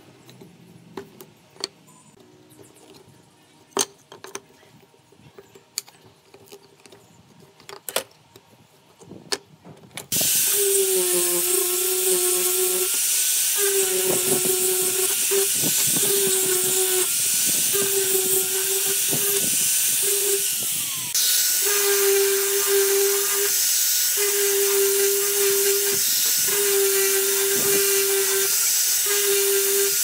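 A few sharp taps and knocks as a wood chisel works a pine block, then an angle grinder with a sanding disc starts suddenly and runs loud, sanding a pine board. Its steady high whine carries a lower hum that comes and goes every second or two as the pad bears on the wood, with a brief dip about two-thirds of the way through.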